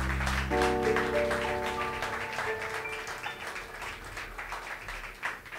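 Closing chord of a jazz waltz ringing out on a Viscount Legend '70s stage keyboard over a deep double-bass note, slowly fading, while the audience applauds.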